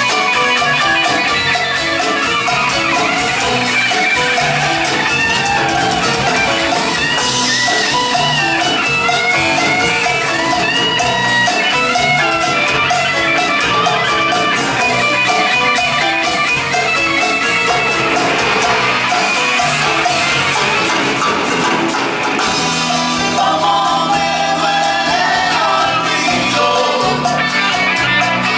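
A live band playing: electric guitar, drums and percussion with a singing voice over a steady beat.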